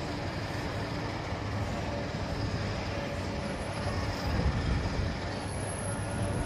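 Tram running at steady speed, heard from on board: a steady low rolling rumble with faint steady tones above it, a little louder about four and a half seconds in.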